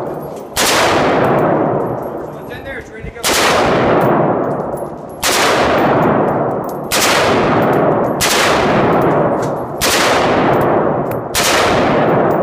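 M4 CQBR short-barrelled 5.56 mm carbine fired in slow single shots, seven in all, each followed by a long reverberant ring of the indoor range.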